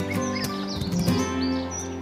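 Background music with sustained tones, overlaid by a quick series of short, high bird chirps.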